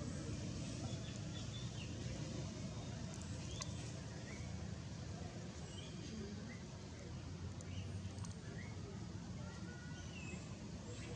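Outdoor ambience: a low steady rumble with scattered short, high chirps and a few faint ticks.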